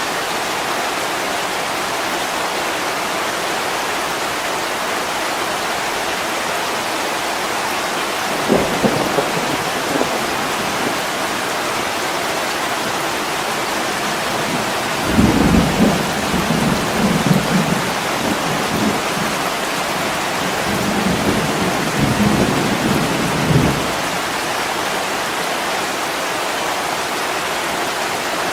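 Steady heavy rain with thunder rumbling twice: a short roll about a third of the way in, then a longer one lasting several seconds in the middle.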